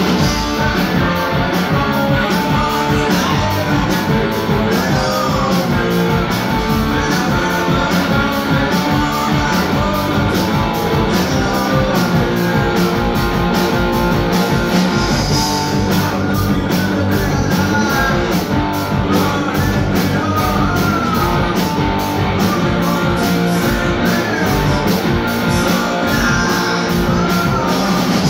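Live rock band playing loud: distorted electric guitars, bass and a drum kit keeping a steady beat, with a singer's voice over it at times.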